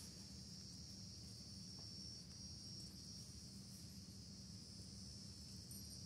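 Faint, steady high-pitched insect drone, unbroken throughout, over a low background rumble.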